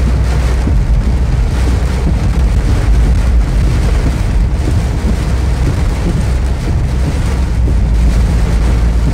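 Inside a car driving through heavy rain: a steady, loud road and engine noise, mostly low, with the hiss of tyres on the wet road and rain on the windscreen and body.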